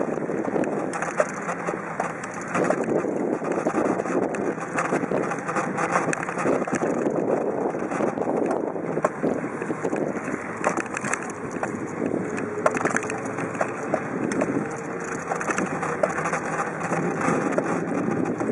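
Wind buffeting the microphone of a bicycle-mounted compact camera while riding, a steady rough rushing noise with many small clicks and rattles from the ride over the paved path.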